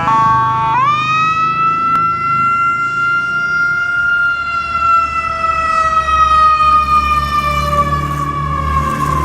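Ambulance electronic siren: a two-tone hi-lo alternation that switches, under a second in, to a wail sweeping up and then sliding slowly down over the next eight seconds. A low rumble comes up in the last few seconds.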